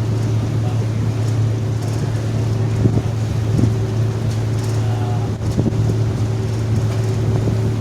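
Staten Island Ferry's engines droning steadily as heard on board, a constant low hum, with wind on the microphone and a few light knocks in the middle.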